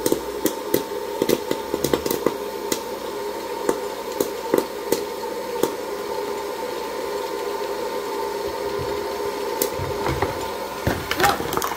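Electric hot-air popcorn popper running with a steady fan hum, kernels popping in sharp, irregular pops over it.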